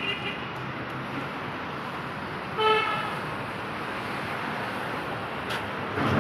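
Light street traffic with a vehicle horn honking once, briefly, about two and a half seconds in, and a short louder rumble of a passing vehicle near the end.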